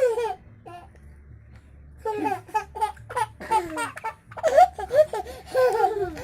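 A small child laughing in bursts: a short laugh at the start, a pause, then about two seconds in a long run of repeated high-pitched laughs.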